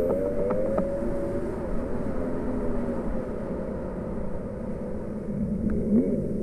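Yamaha WaveBlaster jet ski's two-stroke engine running under way over a low rush of water and wind. Its pitch dips and climbs back as the throttle eases off and comes on again, around the start and again near the end.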